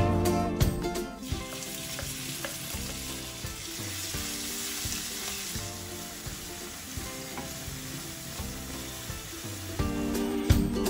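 Chopped red onions, garlic and ginger sizzling as they fry in hot oil in a wok, stirred with a spatula. Background music plays for about the first second and comes back near the end.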